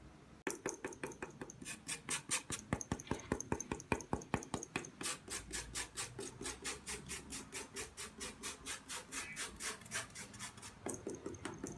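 Lemon being grated against a metal grater in quick, regular rasping strokes, about five or six a second.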